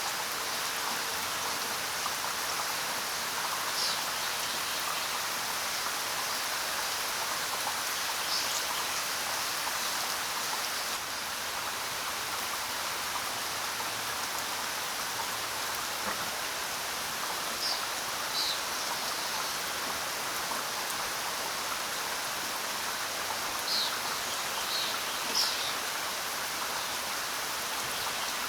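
Steady rain falling, with a few short, high bird chirps now and then, a small cluster of them near the end.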